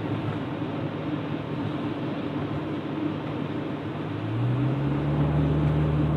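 Cabin sound of a 2001 Acura Integra on a wet road: the 1.8-litre four-cylinder engine running under a steady hiss of tyres on wet pavement. About four seconds in, the engine note rises as the car speeds up, then holds at the higher pitch, a little louder.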